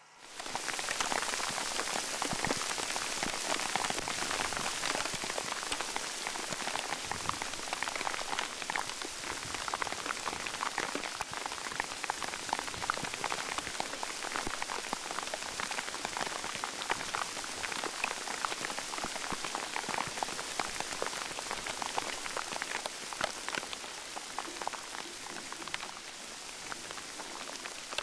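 Steady rain falling on leaves and grass: a dense, even crackle of drops that cuts in suddenly at the start.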